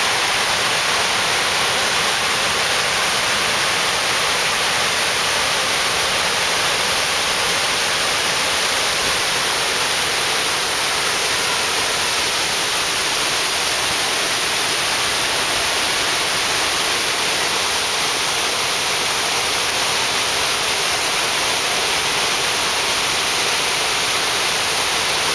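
Dead River's water, swollen with early spring runoff, rushing steadily over a drop in the river, a loud unbroken roar of falling water.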